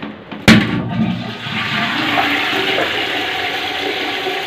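Jaquar Metropole concealed flush valve on its test flush after cleaning and reassembly: a sharp click about half a second in, then water rushing steadily into the toilet bowl.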